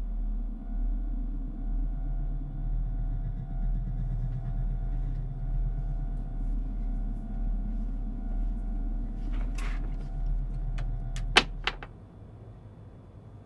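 Film sound-design drone: a low pulsing rumble under a few thin steady tones, then near the end a whoosh and a quick cluster of sharp hits, the loudest a single hit, after which the rumble cuts off to a faint hum.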